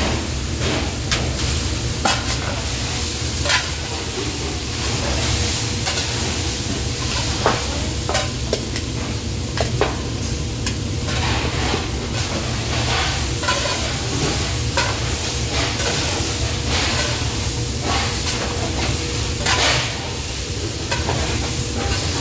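Shredded potatoes and vegetables stir-fried in a large wok: a metal spatula scraping and knocking against the wok at irregular intervals over a steady sizzle. A low steady rumble runs underneath.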